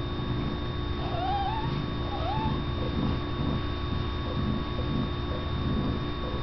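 Newborn kitten mewing twice, two short high wavering squeaks, the first about a second in and the second shorter about a second later, over a steady low rumble.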